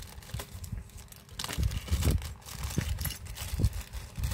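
Clear plastic bag of small phone repair tools crinkling as it is handled and opened, with soft knocks of handling mixed in; the crinkling grows busier about a second and a half in.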